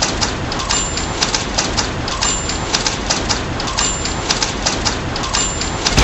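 Typewriter keys clacking rapidly over the steady hiss of continuous rain. A short high ding of the typewriter bell recurs about every second and a half.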